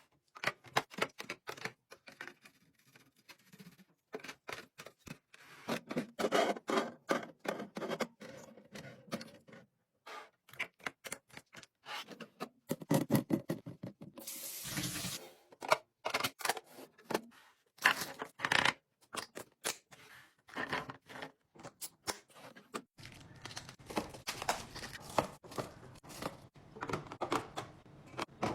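Groceries, containers and packaging handled and set down while a fridge is restocked: many quick clicks, taps and knocks, with a short rushing noise about halfway through.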